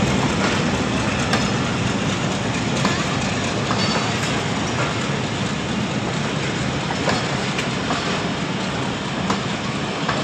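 Pakistan Railways passenger coaches rolling past: a steady rumble and rattle of wheels on the track, with scattered sharp clicks as the wheels cross rail joints.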